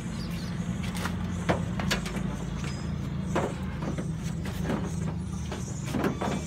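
An engine running steadily with a low drone, with scattered clicks and knocks over it.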